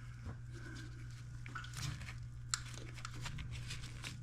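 Low steady hum with faint scattered handling clicks and rustles, one sharper click about two and a half seconds in.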